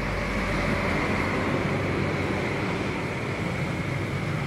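Steady background road-traffic noise: a low rumble under a constant hiss, with no distinct events.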